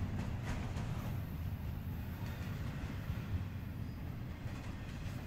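Norfolk Southern intermodal freight train rolling past: a steady low rumble of wheels on rail, with a few faint clicks about half a second in.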